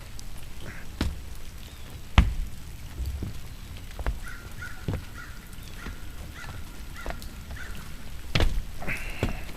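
A bird calling in a quick series of short, repeated calls, with one more call near the end. Scattered knocks and thumps run alongside, the loudest about two seconds in.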